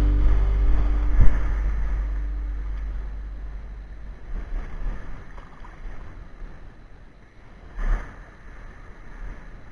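Background music fading out over the first few seconds, leaving seawater sloshing around someone wading in the shallows, with wind on the camera microphone. A knock sounds about a second in, and another bump comes near the end.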